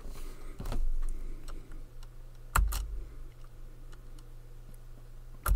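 A few sharp, short clicks of a computer being operated, one pair about two and a half seconds in and another near the end, over a low steady hum.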